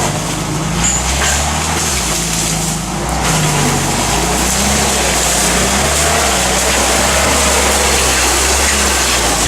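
Toyota truck under way, engine running with a loud, steady rushing noise over it, from a drivetrain whose transmission is worn out and noisy.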